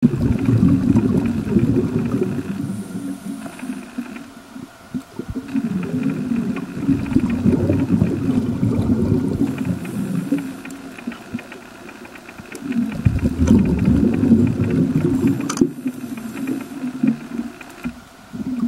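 Scuba breathing through a regulator heard underwater: three long stretches of exhaled bubbles rumbling and gurgling, each a few seconds long. Between them come quieter breaths in, with a thin regulator hiss.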